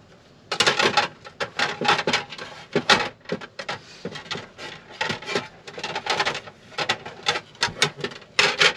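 Freshly washed dishes being put away into a camper's small cupboards: a dense run of clinks, knocks and clatter.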